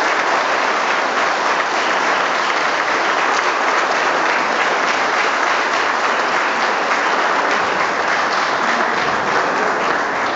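Audience applauding steadily: a dense patter of many hands clapping.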